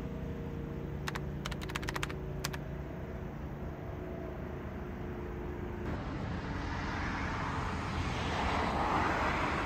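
Roadside ambience at night: a steady low hum with a few sharp clicks a second or two in, then a vehicle going by, its rushing noise swelling to its loudest near the end.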